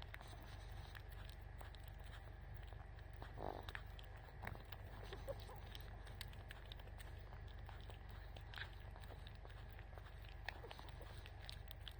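A low steady hum with a few faint, short animal sounds, one about three and a half seconds in and another near nine seconds.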